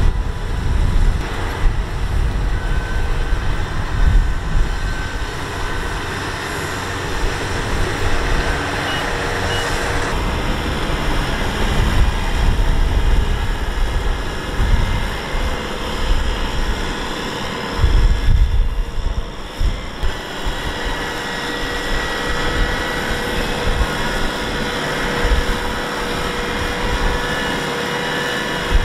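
Kubota M6040SU tractor's diesel engine running hard as the tractor drives through deep, sticky mud, its mud-caked tyres churning in the ruts.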